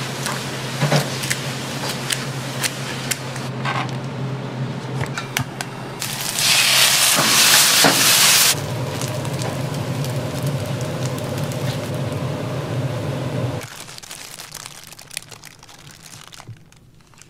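Kitchen food-prep sounds: crackling and clicking over a steady hum, then about six seconds in a loud sizzle of rice stir-frying in a wok over a high gas flame, lasting about two seconds. Near the end the hum drops away and the sounds turn faint.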